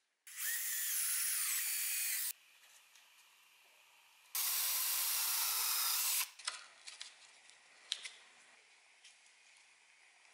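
Hand-held electric drill boring pin holes through a wooden knife-handle scale of old mahogany parquet, in two runs of about two seconds each, the motor's pitch rising and falling in the first. Light clicks and knocks follow as the drilled piece is handled.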